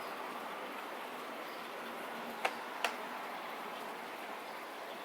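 Two short, sharp plastic clicks about half a second apart, a little past the middle, as the battery pack is slotted and latched into the Russell Taylors cordless stick vacuum, over a steady background hiss.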